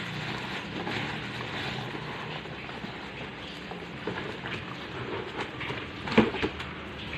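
Drip coffee maker brewing: a steady gurgling and sputtering with irregular small crackles, and one sharper knock about six seconds in.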